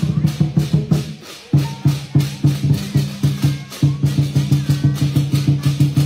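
Drum and cymbals for a dragon dance, playing a fast, steady beat of about five strokes a second. The beat drops out briefly about a second in.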